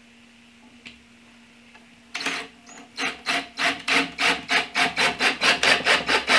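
Cordless drill driving a long screw into pine: starting about two seconds in, a rhythmic rasping grind of about four to five pulses a second that grows louder as the screw goes in.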